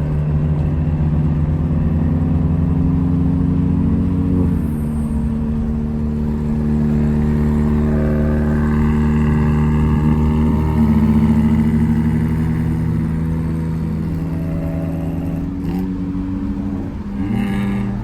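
Peugeot car engine running while driving, a steady drone whose pitch shifts a few times as the revs change.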